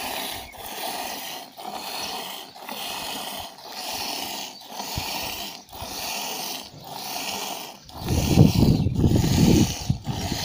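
Goat being hand-milked into a steel pail: regular squirts of milk hiss into the milk already in the pail, about one a second. Near the end a louder low rumbling noise runs for about two seconds.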